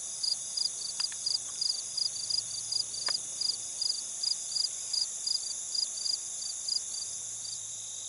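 Crickets singing: a steady high trill with a chirp pulsing over it about two or three times a second, the chirping stopping near the end.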